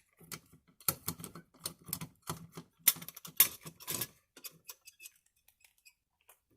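Irregular metallic clicks and rattles of a hex wrench key working the screw of an all-metal Kidde B5 fire alarm pull station, thinning out to a few scattered ticks about four and a half seconds in.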